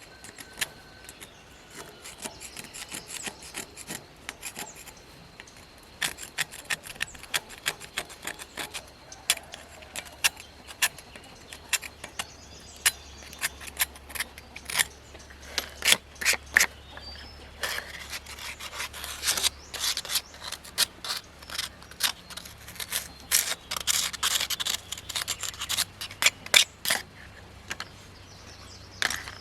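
Hand-tool work on a machine part: irregular scraping and rasping strokes mixed with sharp clicks and taps, busier in the second half.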